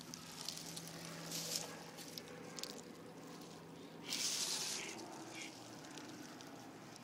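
Dry fallen leaves rustling and crackling in small scattered bursts, with a louder rush of rustling about four seconds in.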